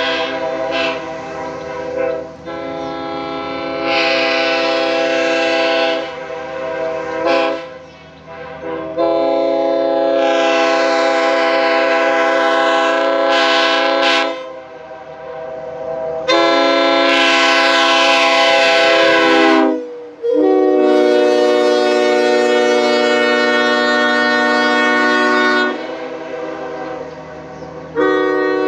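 Nathan Airchime K5HL five-chime train air horn, an early sand-cast unit with bells 1L, 1, 2, 3 and 4, sounding its chord in a string of blasts. Most blasts are held for three to five seconds, with a short toot about seven seconds in and another blast starting near the end.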